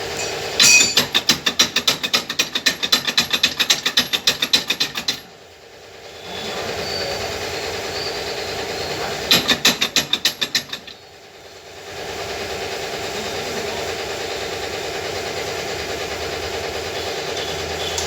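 Rapid metallic clicking in two long runs, about seven clicks a second, over a steady mechanical hum.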